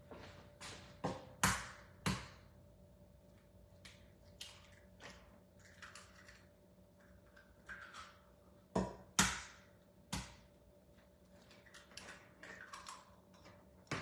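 Eggs being tapped and cracked on the rim of a mixing bowl: sharp knocks in small clusters, the loudest about a second and a half in and again around nine seconds, over a faint steady hum.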